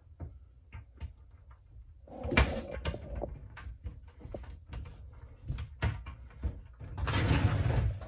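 Frosted-glass sliding shower door being handled and slid open: clicks and knocks from its metal knobs and frame, a louder knock about two and a half seconds in, and a longer sliding noise near the end.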